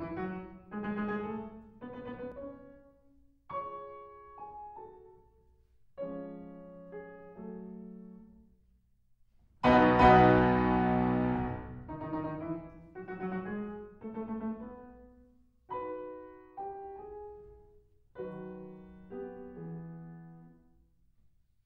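Slow solo piano music: single notes and chords struck and left to ring and fade, with short pauses between phrases and one loud full chord about ten seconds in.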